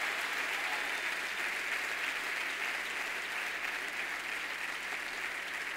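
A large congregation applauding, a dense, steady round of clapping that eases off a little toward the end.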